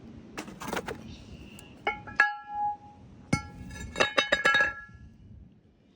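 Metal brake rotor clinking and ringing as it is handled and knocked against metal, in a series of sharp metallic knocks, each leaving a short ring. The knocks bunch together about four seconds in.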